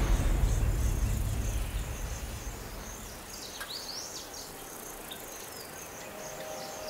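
Night-time savanna ambience: insects chirping in a steady, even row of short high chirps, with a few high sliding calls about three and a half seconds in. A low music swell fades out over the first two seconds.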